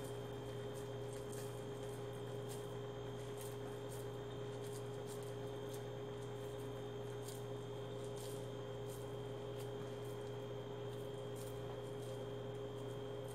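Hands squeezing and kneading a moist rice-and-fish croquette mixture in a metal bowl: faint, irregular squishing and small clicks, over a steady low electrical hum.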